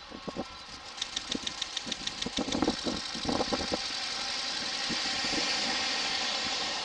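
Train wheels clacking over rail joints in quick pairs as an ED75 electric locomotive's train of long-rail flatcars rolls by. About four seconds in, the clacking gives way to a steady rolling noise.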